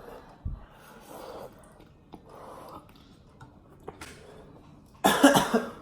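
Heavy breathing and sniffing, with a few light clicks, from people reacting to the burn of extremely spicy noodles. About five seconds in comes a short, loud, pained vocal outburst.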